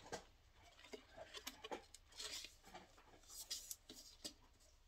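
Faint handling of cosmetic packaging: scattered soft clicks and rubs as the palette's bag-style case with faux leather straps is worked open by hand.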